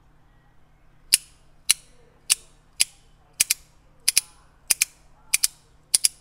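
A handmade Zircuti worry coin with a superconductor inlay being clicked in the hand: sharp, crisp metallic clicks about every half second to second, single at first and then in quick double clicks.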